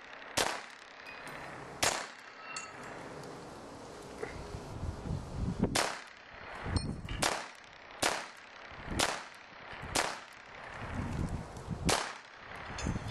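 A Ruger SR-22 .22 LR pistol firing about nine shots at an uneven pace, each a sharp crack, with metallic clangs as bullets strike steel plate targets.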